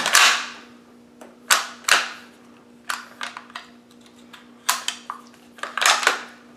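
Bolt of a Type I Carcano-Arisaka rifle being worked by hand: a series of sharp clicks and clacks at irregular intervals, the loudest at the very start.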